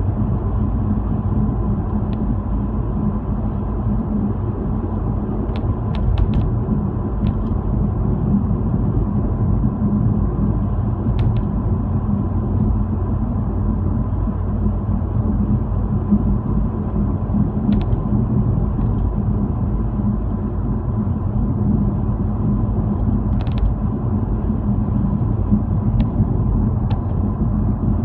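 Car cabin noise while driving on a paved highway: a steady low rumble of engine and tyres on the road, with a light click now and then, a handful of times.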